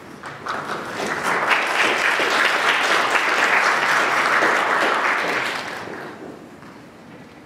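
Audience applauding: the clapping builds during the first second or so, holds steady, then dies away about six seconds in.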